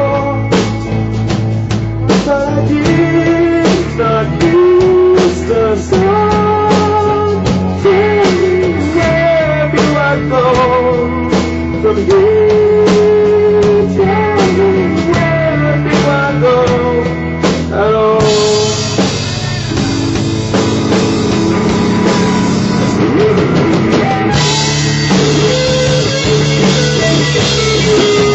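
Live rock band playing an instrumental passage: an electric guitar lead line of held and bent notes over bass guitar and a drum kit. About two-thirds of the way through the band opens up into a fuller, brighter sound.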